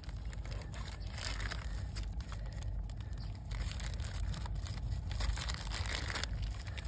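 Plastic bag crinkling and rustling as it is wrapped around a live mud crab to bind its claws, over a steady low rumble.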